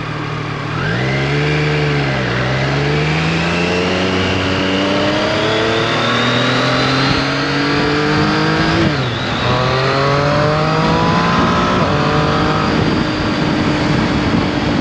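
Triumph Street Triple RS's 765 cc inline three-cylinder engine accelerating hard. Its pitch climbs and drops sharply at upshifts about nine and twelve and a half seconds in, then the engine runs steadily at speed over a steady rush of wind.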